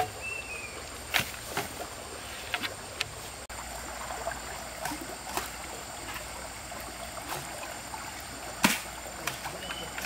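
Scattered light clicks and knocks over a steady outdoor hiss, with the loudest knock near the end.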